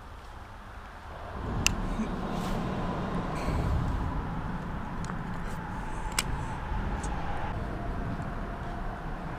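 Traffic crossing the concrete road bridge overhead. A low rumble swells about a second in and holds, and a faint tyre hum falls slowly in pitch, with two sharp clicks along the way.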